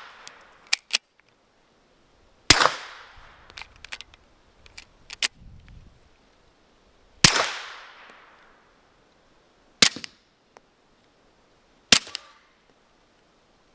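Dead Air Odessa-9 suppressed Glock 48 MOS 9mm pistol fired four single shots, a few seconds apart. The first two shots trail off in a longer echo; the last two cut off more quickly.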